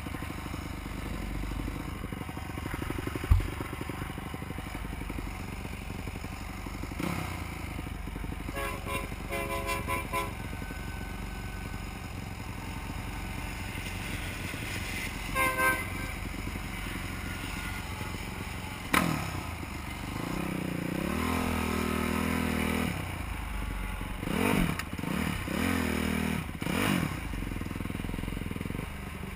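Supermoto motorcycle engines running, with a sharp knock about three seconds in and a few short pitched beeps around nine and fifteen seconds. From about twenty seconds an engine revs up and holds, then blips several times near the end.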